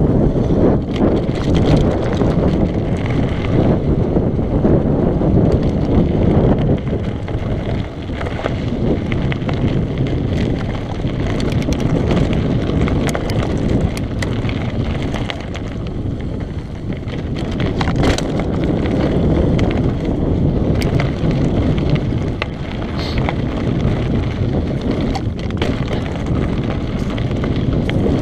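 Mountain bike descending a dirt and gravel singletrack: steady wind noise on the GoPro's microphone with the tyres rolling over loose dirt and stones, and frequent short clicks and rattles from the bike over the bumps.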